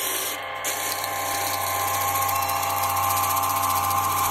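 A power tool running steadily, a constant machine hum with a high hiss.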